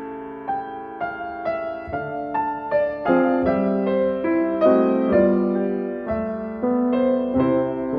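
Piano music: single notes and chords struck about two or three times a second, each note fading as the next comes in.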